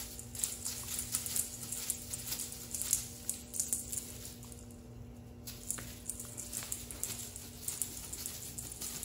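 Irregular crinkly rustling and light ticks from a wand toy's shiny tinsel streamers as they are swished about and batted by a cat.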